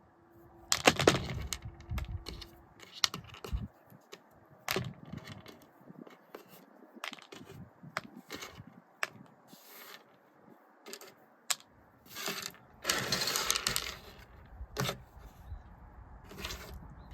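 Dried seoritae black soybeans clicking and rattling as they are sorted by hand, with scattered single ticks and a few denser bursts of clatter, about a second in and again near the end.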